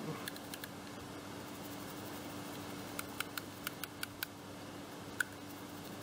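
Small, sharp clicks and ticks from the little scissors of a Victorinox Huntsman Lite Swiss Army knife being scrubbed with a toothbrush: a quick run of them about three seconds in and one more near the end, over a faint steady hum.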